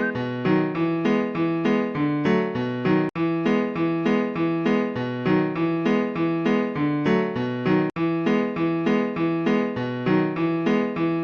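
Background music: a piano or electric-piano tune in a steady, even rhythm. It repeats as a short loop, cutting out for an instant twice.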